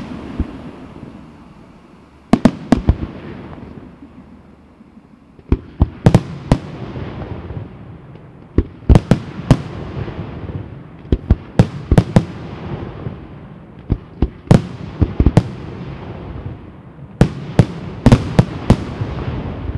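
Aerial firework shells from a Senatore Fireworks night display bursting in quick volleys of sharp bangs, about six volleys of two to five bangs each, a few seconds apart. Each volley is followed by a rolling echo.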